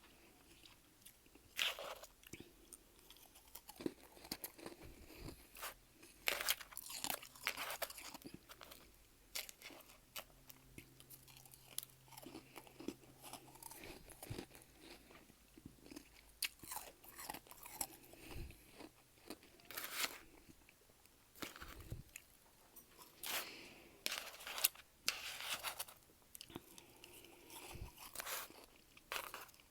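Close-miked chewing of soft, powdery freezer frost: irregular clusters of crisp crunches separated by short pauses.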